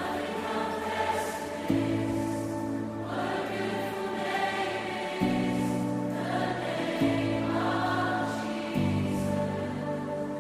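Choral music: voices singing over sustained low chords that change every two to three seconds.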